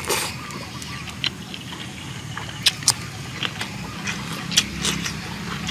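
Close-up eating sounds: a man chewing a mouthful of raw cucumber dipped in chili sauce, with a few sharp crunches and smacks. A steady low hum runs underneath.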